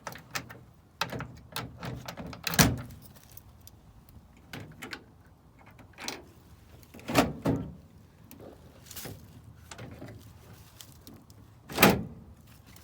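Keys jangling and a run of metallic clicks and clunks from working a vending machine's lock and door, with three louder knocks spread through, the last near the end.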